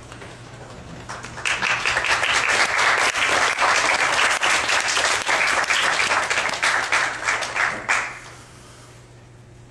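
Audience applauding. It swells about a second in, holds steady, and dies away a little after the eighth second.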